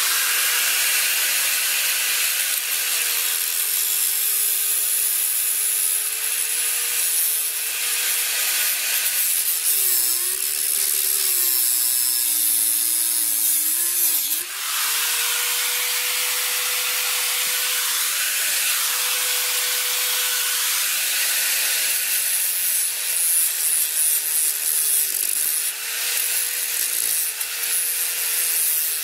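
Angle grinder running and cutting through a 15 mm copper pipe used as a ground rod. The motor's note sags for several seconds in the middle as the disc bites into the pipe, then picks back up.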